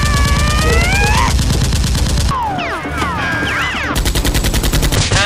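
Machine-gun fire sound effect in two long bursts of rapid, evenly spaced shots: the first over the first couple of seconds, the second starting about four seconds in.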